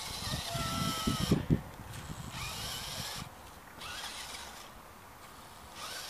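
Electric drive motors and plastic gearboxes of a 1:18 HB-P1801 rock crawler RC car whirring in spurts, stopping and starting several times as it crawls over rough dirt. A few low thumps in the first second and a half are the loudest sounds.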